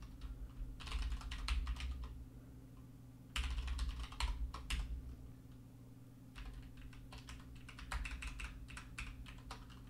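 Typing on a computer keyboard: three short runs of keystrokes with pauses between them, over a faint steady low hum.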